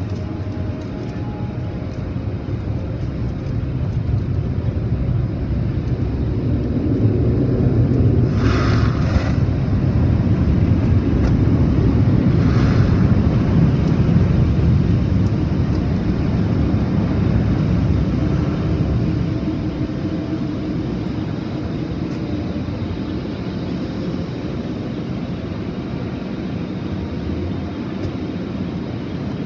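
Automatic tunnel car wash heard from inside the car: water spray and washing equipment beating on the body and glass in a dense, steady rush. It swells louder for about ten seconds in the middle, with two brief higher hisses.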